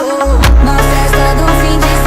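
Background music: an upbeat electronic-style track with a heavy bass line and a steady beat. The bass comes in a moment after the start.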